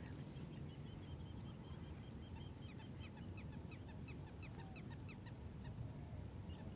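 Wild birds calling: a long run of short, sharp notes, each falling in pitch, coming fast at first and then a few a second, over a steady low background rumble.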